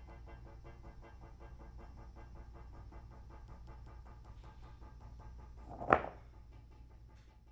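Small winding motor running in fast, even pulses over a low steady hum. Just before six seconds in, a twine-harnessed stone tips forward and clacks loudly against the river stones it is being dragged over, with a faint scrape shortly before and a small click after.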